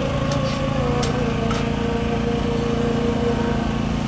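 Small engine running steadily with a constant low hum, a few faint clicks over it in the first second or so.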